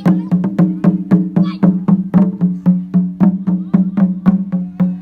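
Traditional percussion playing a fast, even beat of sharp strikes, about five or six a second, over a steady low ringing tone.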